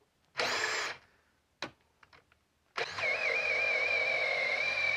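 Hilti SF 6H-A22 cordless drill boring a 1.5-inch self-feed wood bit into pressure-treated timber: a short burst of the motor under a second in, a click, then from about three seconds in a steady high motor whine as the drill works under heavy load.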